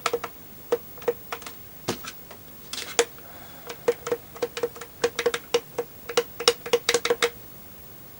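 Rapid, uneven plastic clicks of a Quickshot Maverick 3 joypad's buttons being pressed over and over, in quick runs of several presses a second with a short scrape about three seconds in. The presses are testing a fire button that isn't registering on the Amiga.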